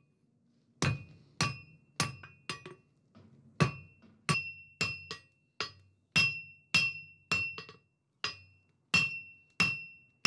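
Hand-hammer blows on a red-hot 20 mm round steel bar on the anvil, drawing out a taper. The strikes come about two a second, with a short pause about three seconds in, and each blow rings briefly with a bright metallic tone.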